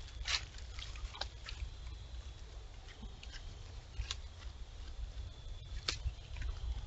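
Deer stepping through dry fallen leaves: a few scattered crunches and rustles, with a faint steady high whine underneath.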